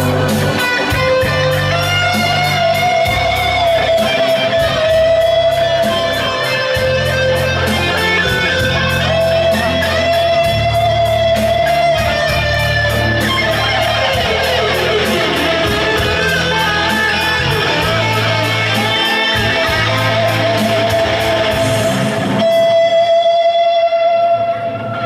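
Amplified band music at a sound check: a plucked electric-guitar-like lead over bass and a steady beat with regular high ticks. About 22 seconds in, the drums and bass drop out, leaving one held note.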